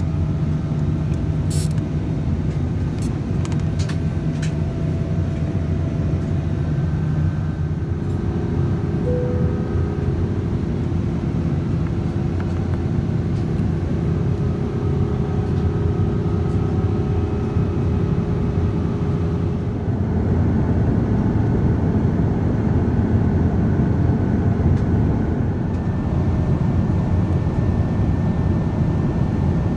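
Steady cabin noise inside a Boeing 777-200ER airliner: a low rumble with air hiss, changing in character about 8 and 20 seconds in. A few light clicks come in the first few seconds.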